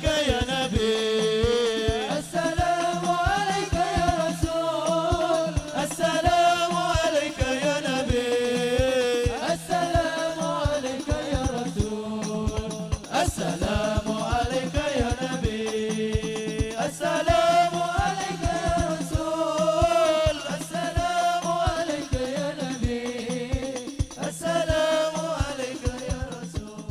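Voices singing a drawn-out, melismatic sholawat melody over hadrah frame drums (rebana) beating a fast, dense rhythm.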